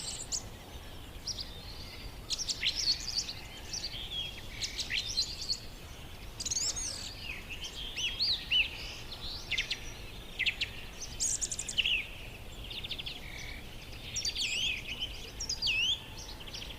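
Several pet birds chirping and whistling in quick, overlapping short calls that glide up and down in pitch, over a faint steady background hum.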